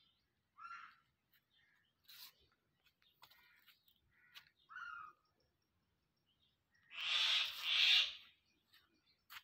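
Birds calling: a few short calls, then two loud, harsh calls close together about seven seconds in.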